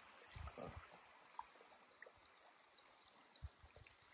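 Near silence: a faint steady hush outdoors, with a few soft low thuds and two brief high chirps.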